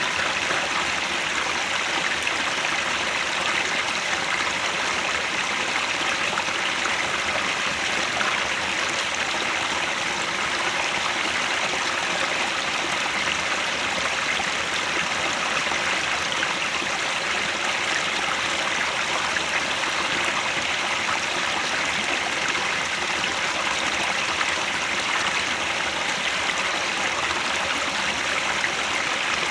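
Mountain headwater stream flowing over rocks: a steady, unbroken rush of water with a bright trickling hiss.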